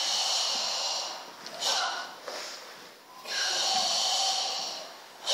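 Karateka doing a Kyokushin kata with forceful ibuki breathing: two long hissing exhalations of about two seconds each, with a short sharp breath between them.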